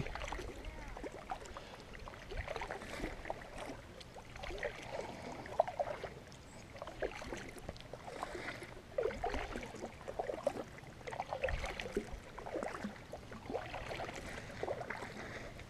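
Water lapping and gurgling against a kayak's hull in small, irregular splashes.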